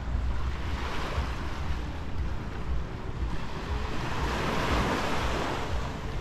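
Sea surf washing onto a beach, one wave swelling and washing in about four seconds in, with wind buffeting the microphone as a low rumble throughout.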